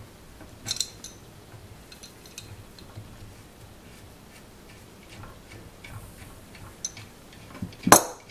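Scattered light metallic clicks and ticks as a wrench, nut and thrust bearing are handled on a threaded steel bolt, with one louder metal knock near the end.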